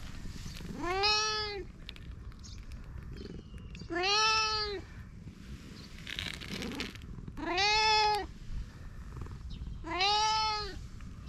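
Long-haired tabby cat meowing four times, each a drawn-out call of about a second that rises and then falls in pitch, spaced about three seconds apart.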